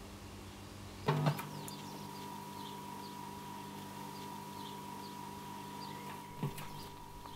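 Record player being readied to play: a sharp click about a second in, after which a steady low hum and a faint higher tone run on, and a soft thump near the end as the stylus is set down on the vinyl record.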